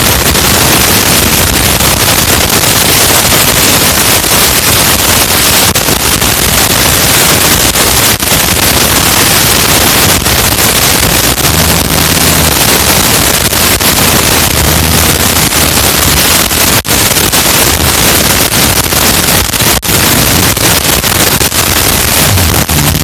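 Loud, distorted rustling and crackling from a camera's microphone being lain on and rubbed by a sleeping man's body, with brief low rumbles here and there.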